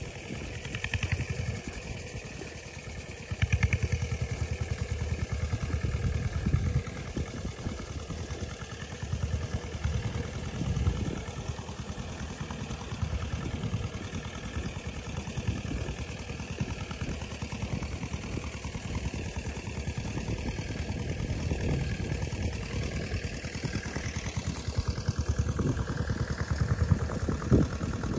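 An engine running steadily at a low, even speed.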